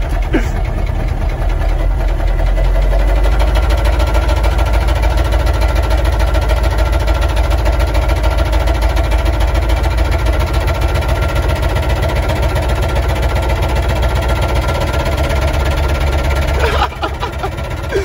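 Humvee V8 diesel engine running steadily, heard from inside the cab, with a dense, fast low pulsing; the sound drops sharply in level about a second before the end.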